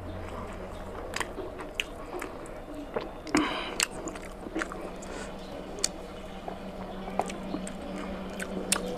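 A person chewing and biting mutton meat off the bone, with wet mouth smacks and clicks throughout and one louder bite a little over three seconds in.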